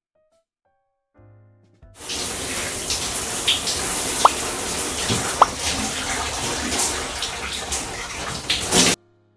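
Water rushing from a wall-mounted shower mixer tap, starting about two seconds in and cutting off suddenly about a second before the end. Two short squeaks sound in the middle of the flow.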